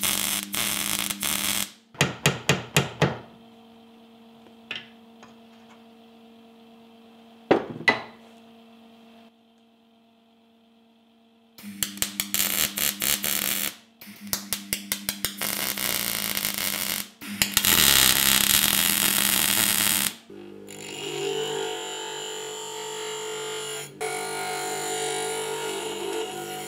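MIG welder arcing on a steel handle in a series of crackling bursts, some long and some short tack-like ones in quick runs, with the welder's steady hum between them. From about twenty seconds in, a bench grinder grinds down the weld.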